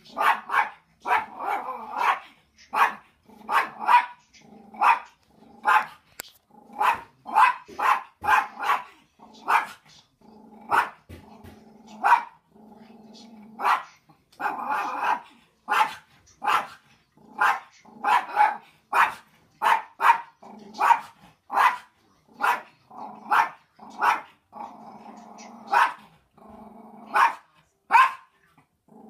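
Small curly-coated dog barking repeatedly at dogs on a television, sharp barks at about one to two a second with stretches of low growling between them.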